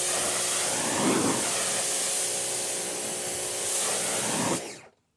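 Water spray rinsing Purple Power degreaser off a metal tractor fender pan so it stops eating the paint: a loud, steady hiss that shifts as the spray sweeps across the surface, then cuts off abruptly near the end.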